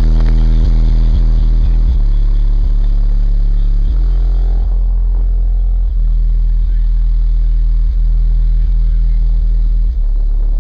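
Car-audio subwoofer system played at very high level: a deep, steady bass note with overtones, stepping to a new note every couple of seconds, with short clicks where the notes change.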